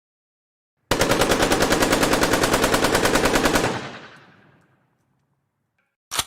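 AK-47 assault rifle firing one fully automatic burst of about three seconds, roughly ten shots a second, its echo fading out over about a second afterwards. A single sharp click near the end.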